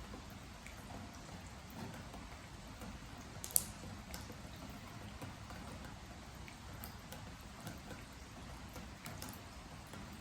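Steady rain with scattered drops falling on a wooden deck. One sharper drip about three and a half seconds in is the loudest sound.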